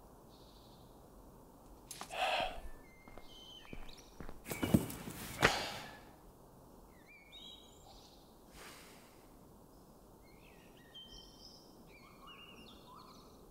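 A folding camping chair being opened and sat in: a rustle, then a couple of sharp clacks about four and five seconds in. Birds chirp in short calls through the rest over quiet outdoor background.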